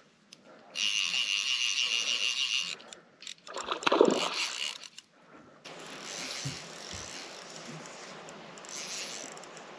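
Fly reel's drag buzzing steadily for about two seconds as a hooked trout pulls line off, then a splash as the fish thrashes at the surface. A quieter steady hiss follows.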